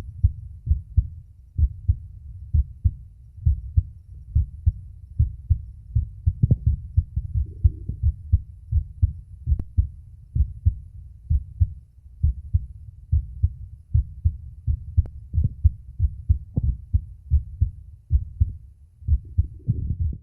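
Adult male heartbeat picked up by a phone microphone pressed against the chest: a steady run of low lub-dub pairs. A few brief scratches and clicks come in where the phone shifts on the skin.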